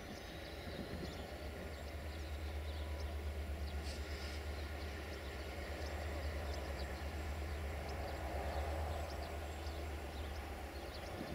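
Diesel engine of a CFR Class 65 EGM diesel-electric locomotive running with a steady low drone as it slowly approaches hauling a passenger train.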